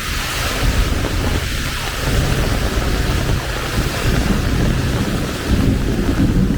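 Heavy rain falling in a steady, loud wash, with wind buffeting the microphone in an uneven low rumble.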